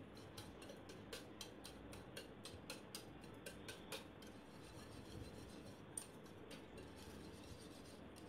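Wire whisk beating egg, milk, sugar and butter in a shallow dish: faint, quick scraping clicks of the wire against the dish, about three or four strokes a second.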